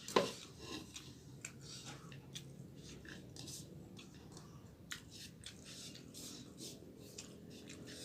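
Close-up eating: irregular chewing and mouth clicks, with one sharp knock, like a spoon against a bowl, just after the start.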